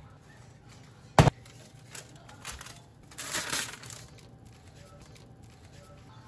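Kitchen handling sounds as a freshly baked loaf is lifted out of a cast-iron Dutch oven: one sharp knock about a second in, a few light taps, then about a second of crackling as the baking parchment is pulled away from the bread.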